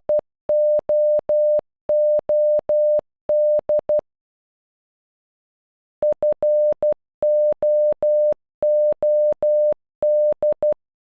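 Morse code for FOOD sounded as a single mid-pitched beeping tone keyed in dots and dashes: the tail of the F, then O O D (--- --- -..), a pause of about two seconds, and the whole word ..-. --- --- -.. again.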